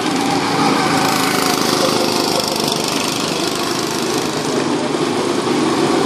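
Small engines of several go-karts running steadily as the karts drive around the track and pass close by.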